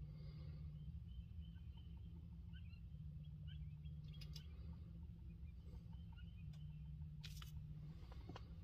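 Quiet background: a steady low hum with faint, scattered bird-like chirps, and a couple of brief clicks about seven seconds in.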